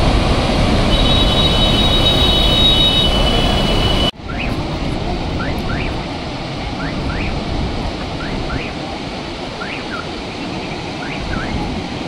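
Floodwater from the open spillway gates of Srisailam Dam, a concrete gravity dam, rushing down the spillway in a loud, steady roar. It cuts off abruptly about four seconds in and comes back a little quieter, with short rising chirps repeating over it.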